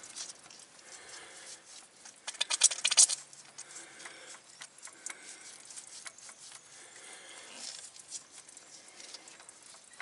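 Air and diesel spitting and crackling from the loosened air bleed screw on an Isuzu 3KC1 diesel's fuel filter head while the hand priming pump is worked. The loudest part is a burst of rapid crackles about two to three seconds in, with fainter spits and clicks throughout. This is trapped air being bled from the fuel system after a filter change.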